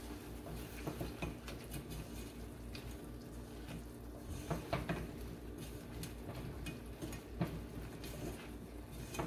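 A silicone spatula stirring shell-on prawns in a small saucepan: soft scraping with a few light knocks against the pan, over a faint steady low hum.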